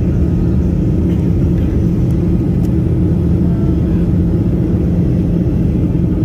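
Cabin noise inside a Boeing 737-800 in flight: a steady low rumble of engines and airflow with a constant hum.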